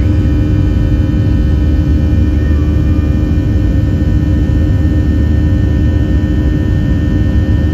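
Cabin noise of a Boeing 737-700 climbing after takeoff: the steady drone of its CFM56-7B turbofan engines at climb thrust, a deep rumble with several steady tones above it.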